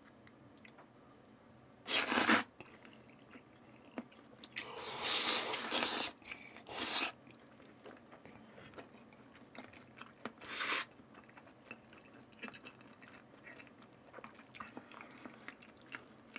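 Close-miked eating of raw salmon strips: soft, wet chewing with a few loud noisy slurps. The longest slurp comes about five seconds in and lasts about a second and a half; shorter ones fall about two, seven and ten seconds in.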